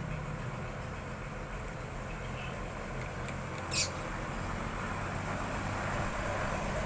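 Steady background noise with a low hum, and one short high chirp nearly four seconds in.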